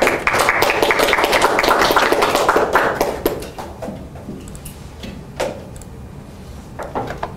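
A small audience applauding for about three seconds, then dying away, followed by a few scattered knocks.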